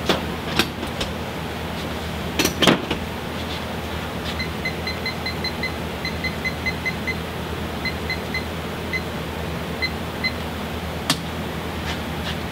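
Runs of short, high electronic beeps, first in quick strings of six or seven and then single beeps, as buttons are pressed on the powder coating oven's digital controller, over a steady machine hum. A few metal clanks from the hooks and hanging parts come in the first three seconds and once more near the end.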